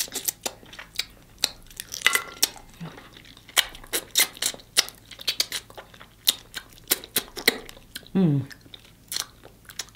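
Close-up mouth sounds of eating snow crab legs: sucking the meat out of the shell, lip smacking and chewing, as a quick run of sharp wet clicks. There is a short voiced "mm" about eight seconds in.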